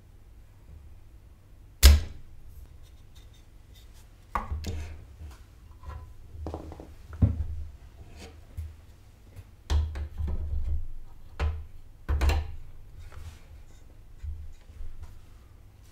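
Spring-loaded desoldering pump snapping once sharply about two seconds in as it sucks solder from the motherboard's capacitor joints. It is followed by a string of softer knocks and clicks of the tools working the board.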